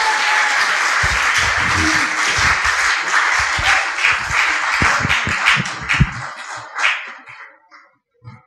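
Audience applauding over the tail of some music, the clapping thinning out and dying away about seven seconds in.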